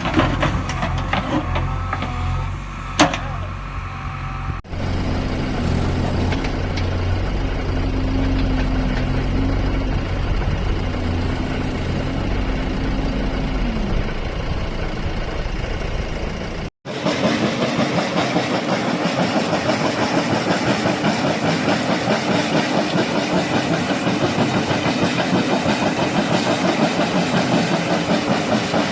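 Diesel engines of JCB construction machines running steadily, in three clips cut together. In the middle clip a held whine drops away near its end, and the last clip has a fast, even engine beat.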